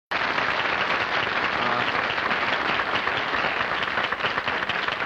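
Studio audience applauding, a dense, steady clapping that thins into more separate claps near the end.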